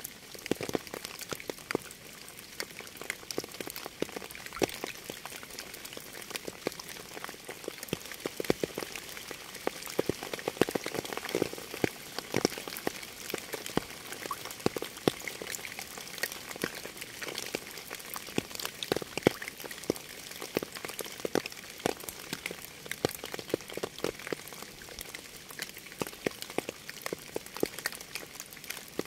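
Rain falling steadily: an even hiss dotted with many separate drops ticking at irregular moments.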